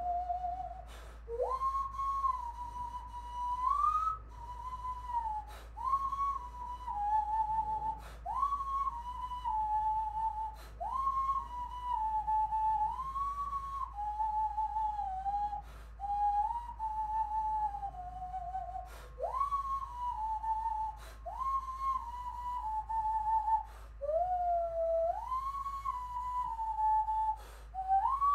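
Hand whistling: a slow, melodic tune blown into cupped hands, one pure hollow note at a time. Each phrase of about two seconds scoops up into a held note and steps or slides down, with a short breath between phrases.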